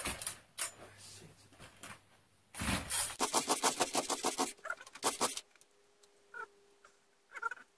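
Partner 510 two-stroke chainsaw being pull-started: a hard pull on the starter cord about two and a half seconds in, the engine turning over in rapid even pulses for about two seconds without catching. A few faint short chirps follow.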